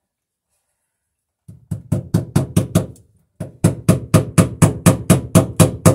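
Hammer rapidly driving cable staples into a wooden beam overhead, about five sharp ringing blows a second. A short run of strikes starts about a second and a half in, pauses briefly, and a longer run starts about three and a half seconds in.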